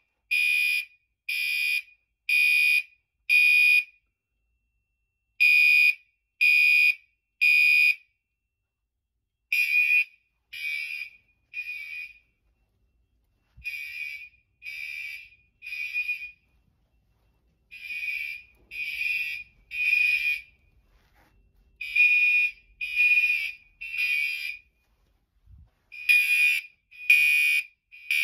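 Fire alarm horn strobes sounding the temporal-3 evacuation pattern: three short, high-pitched blasts about a second apart, then a pause, repeating.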